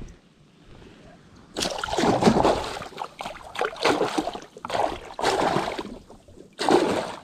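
A hooked snakehead thrashing at the surface right beside the boat, throwing up water in several bouts of loud splashing: the first and longest about one and a half seconds in, the last near the end.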